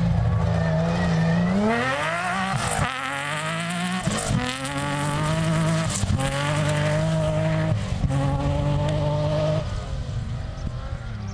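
Off-road rally prototype's engine at full throttle as it accelerates across grass. The pitch climbs and then drops abruptly at each gear change, four or five times in a row, and the sound fades a little near the end as the car pulls away.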